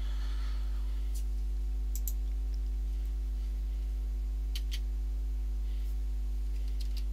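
Steady low hum with a few faint computer keyboard clicks scattered through it, a pair about two seconds in and another about four and a half seconds in.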